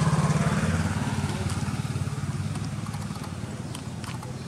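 A motor vehicle's engine running with a low, steady drone, loudest at the start and slowly fading away.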